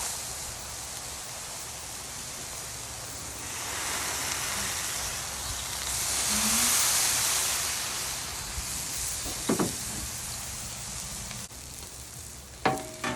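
Thin smashed ground-chicken tortillas sizzling as they fry on a hot cooking surface, a steady hiss that swells twice. Two sharp clicks cut through, one about two-thirds of the way in and one near the end.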